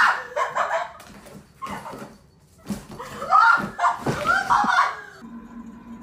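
People laughing and exclaiming in short bursts, without clear words.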